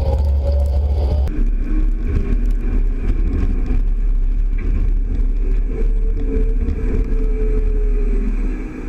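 Tractor-pulled grain cart running across a field: a steady engine drone over a deep rumble, which eases a little about a second in.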